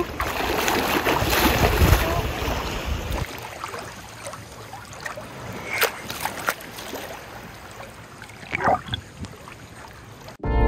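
Seawater sloshing and splashing against a phone held at the surface by a swimmer. It is loudest and rumbling for the first three seconds, then quieter lapping with a few sharper splashes.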